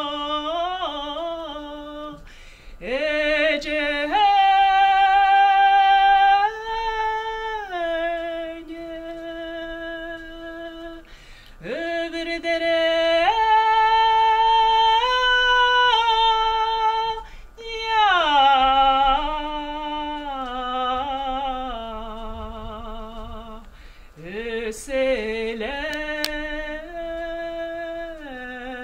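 A woman singing a Kalmyk long song unaccompanied: long drawn-out held notes with wavering ornaments, in phrases broken by brief pauses for breath.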